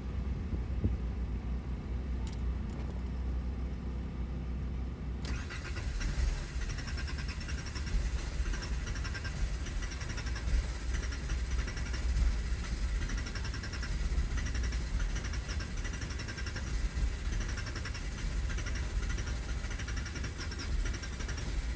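Low rumble, then from about five seconds in the starter motor of a Skoda Fabia Mk1 cranking the engine steadily in a regular rhythm without it catching: the car cranks but won't start because of a failed fuel pump.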